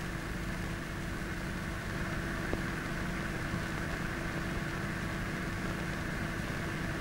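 Steady hiss and hum of an old film soundtrack with no narration, broken by a few faint clicks.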